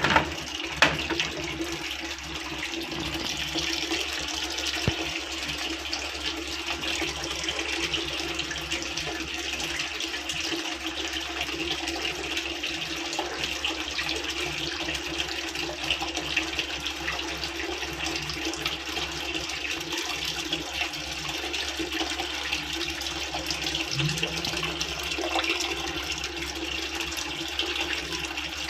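Water running steadily into a Midea 6.5 kg washing machine, with a steady low hum beneath it and a couple of knocks at the start. The water keeps flowing and the machine does not start, a fault the owner puts down to a bent pressure pipe.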